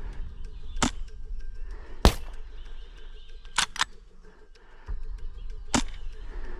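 Airsoft gunfire: five sharp cracks at irregular intervals, two of them close together in the middle, over a low rumble.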